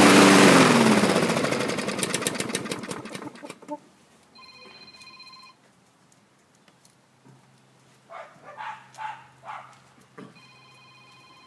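Briggs & Stratton 675EXI engine on a Husqvarna walk-behind mower running briefly, then dying away over about three seconds as its firing slows: it starts and stalls, which the owner puts down to the carburetor. Later a short electronic ringing tone sounds twice.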